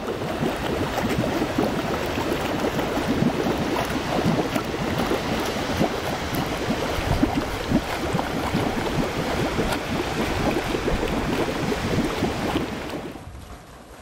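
Shallow stream of milky-white water rushing and splashing over a sulfur bed: a steady, dense rush with many small splashes, fading away near the end.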